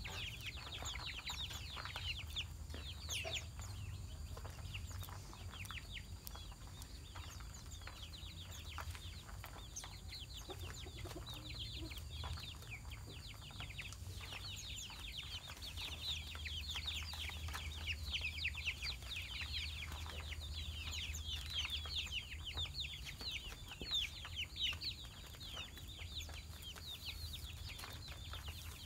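Dense, continuous high chirping from many small birds, short quick calls overlapping, busiest in the second half, over a steady low hum.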